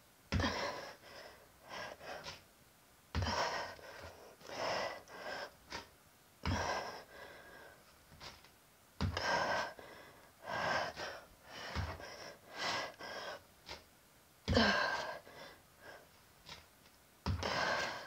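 A woman's hard breathing while doing hopping plank exercises: a sharp gasp or forceful exhale about every three seconds, each starting with a thump as she lands from a hop.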